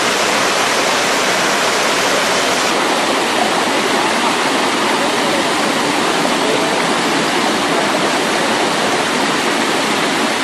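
Waterfall pouring onto rock and into a shallow pool: a steady, even rush of water.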